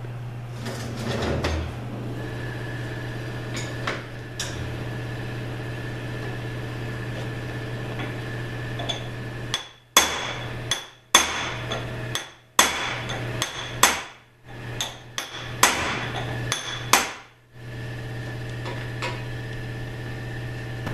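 Hammer blows on metal parts of a Subaru 4AT automatic transmission being torn down: a run of a dozen or so sharp strikes, about half a second apart, starting about ten seconds in and lasting some eight seconds. Before that, light handling clatter; under it all, a steady low hum.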